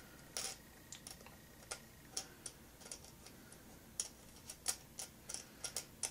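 Light, irregular metallic clicks and ticks of a mini toggle switch and its small mounting nut being handled and fitted through a guitar's top by hand. The clicks start about half a second in and come more thickly toward the end.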